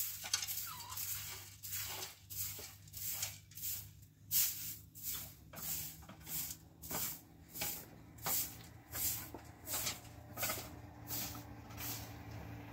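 Rhythmic scraping strokes, about two a second, fading out near the end, over a faint steady low hum.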